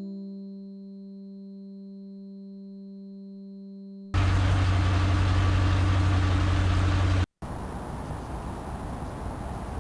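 A held musical chord rings on and fades for about four seconds. Then a loud cartoon car-engine sound effect cuts in abruptly, a noisy rush over a deep steady hum. It drops out for a moment about three seconds later and carries on quieter.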